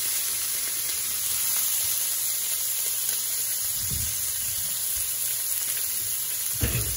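Pork and mixed vegetables sizzling steadily in hot oil in a nonstick wok on high heat. There are two low knocks, one about four seconds in and a louder one near the end.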